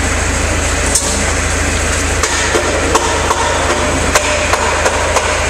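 Steady workshop background noise with a low hum, broken by five or so sharp knocks spaced roughly a second apart.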